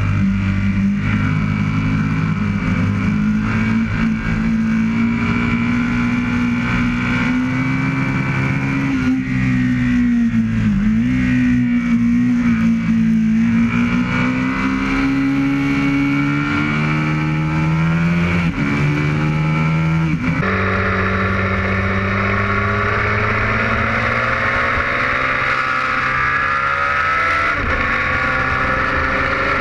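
Aprilia RSV Mille's 998 cc V-twin running hard at high revs at speed, with wind rush; its pitch dips and climbs again near the middle. About two thirds through the sound cuts abruptly to a windier, thinner mix, with the engine still heard under heavy wind rush.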